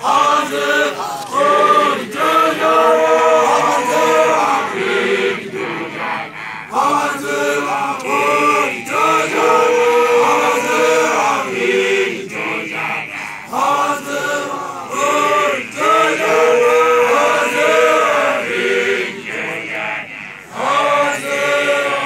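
A group of men chanting a song together in repeated phrases with short breaks between them, loud and with no instruments heard.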